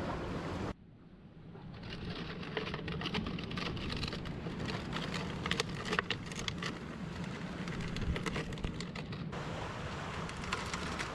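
Plastic bottle trap full of crabs being handled: dense, irregular clicking and crackling of the plastic as a stick is worked inside it. Surf and wind hiss comes back near the end.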